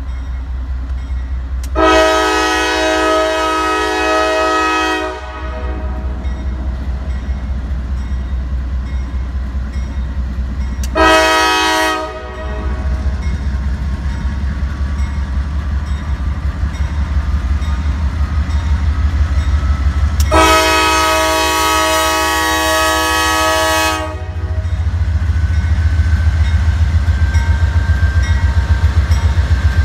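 CSX diesel freight locomotive sounding its multi-chime air horn for a grade crossing: a long blast, a short one, then another long one, over the steady low rumble of its engine. Near the end the rumble grows louder and a regular wheel clatter sets in as the locomotive reaches the crossing.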